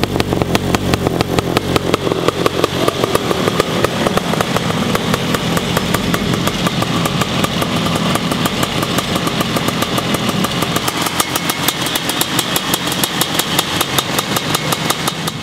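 Outlaw kart's 500cc single-cylinder two-stroke engine idling steadily, its exhaust pulses coming evenly and quickly.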